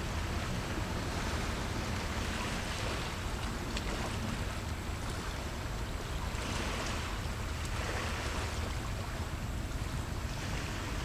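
Small sea waves washing in, a hiss that swells and fades every couple of seconds, over a steady low rumble.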